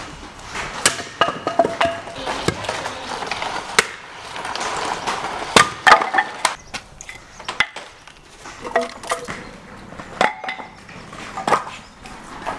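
A hatchet splitting firewood into kindling on a wooden chopping block: a string of sharp, irregular chops with wood cracking and splitting.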